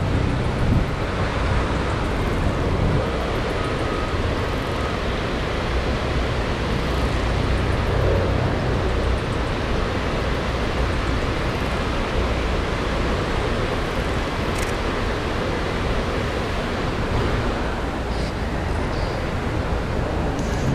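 Steady city street traffic noise, a dense rumble with no break, with a faint high tone in the first few seconds and one short click about two thirds of the way through.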